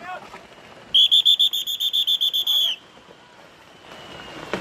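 A whistle blown in one shrill blast of about two seconds, starting about a second in, its high pitch fluttering quickly in a trill.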